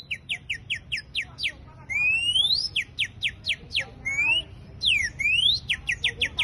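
Whistled bird-call imitation: runs of quick falling whistle notes, about four or five a second, broken by a few longer rising glides.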